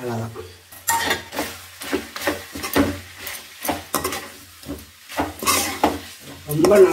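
Perforated steel ladle scraping and knocking against an aluminium kadai as chicken pieces are stirred and tossed, in quick irregular strokes starting about a second in.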